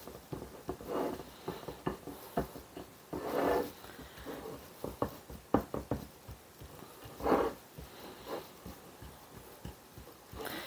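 A fork clicking and scraping on a ceramic pie plate as cookie crumbs are pressed into a crust, with several short, sharp clicks. A few short breathy puffs stand out, the loudest about seven seconds in.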